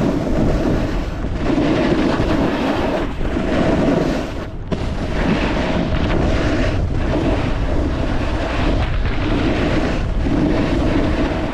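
Snowboard base and edges scraping and chattering over bumpy, wet snow: a loud, steady rumble with short dips as the board turns, with wind buffeting the microphone.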